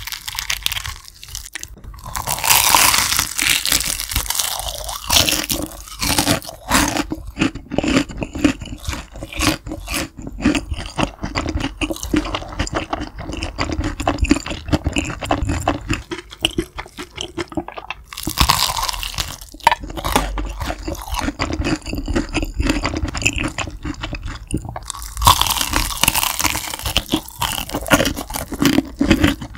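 Close-miked bites into crispy fried chicken: the batter crust crunches and crackles in several loud stretches, with wet chewing and smaller crunches in between.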